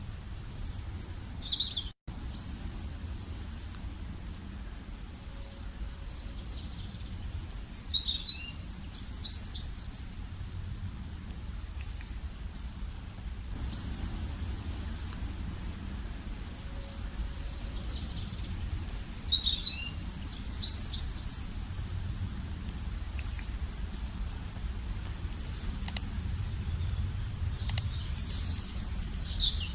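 Small birds chirping and twittering in short high bursts every several seconds, over a steady low rumble.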